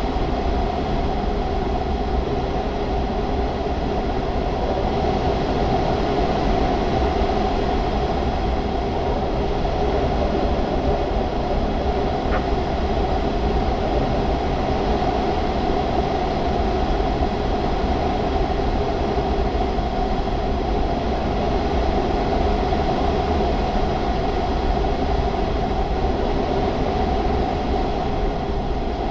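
Steady rushing airflow noise inside the cockpit of a Grob 103 glider in free flight, with no engine running; an even, unchanging rush with a low rumble beneath it.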